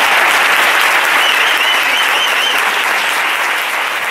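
Audience and performers applauding, with a warbling whistle over the clapping between about one and two and a half seconds in. The applause slowly fades toward the end.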